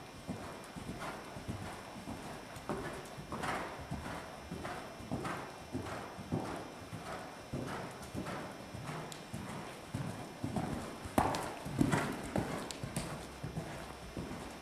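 Hanoverian mare's hooves on sand arena footing at the canter: a rhythmic beat of hoofbeats, a bit under two strides a second, with a few louder strikes near the end.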